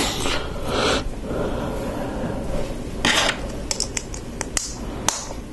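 LEGO plastic plates being handled and pressed together: a rustle of parts, then a run of small sharp clicks.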